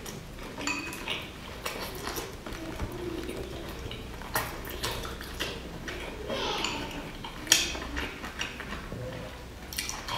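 Chewing of soft boiled dumplings, with chopsticks clicking against a glass dipping-sauce bowl; the sharpest click comes about seven and a half seconds in.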